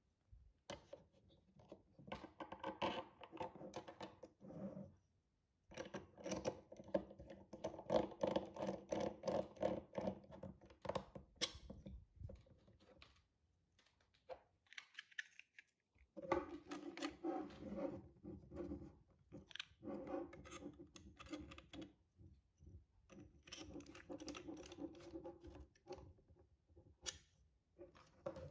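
3D-printed plastic parts of a toy race-car kit scraping, creaking and clicking as hands fit them together and turn the large printed plastic screws. The sound comes in several spells with short pauses between.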